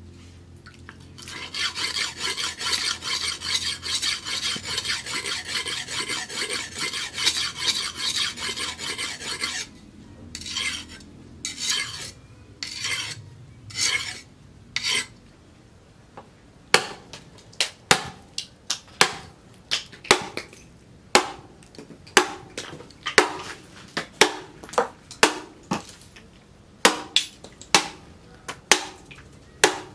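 Leaf-spring steel billhook scraped quickly back and forth on a wet sharpening stone, then in slower single strokes. From just past halfway, sharp knocks about one and a half a second as the billhook chops into a bamboo pole lying on a stone block.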